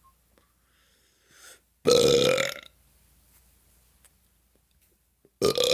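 A person belching loudly twice: carbonated-drink burps from LaCroix sparkling water. Each lasts under a second, the second coming about three seconds after the first and running on past the end.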